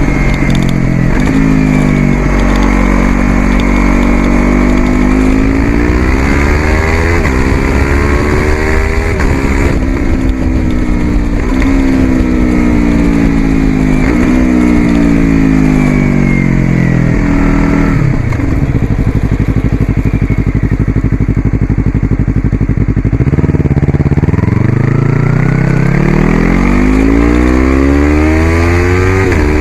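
Yamaha YZF-R3's parallel-twin engine, fitted with an aftermarket Coffman's exhaust, running under way, its revs rising and falling again and again. A steadier, lower-revving stretch past the middle gives way to a long climb in revs near the end.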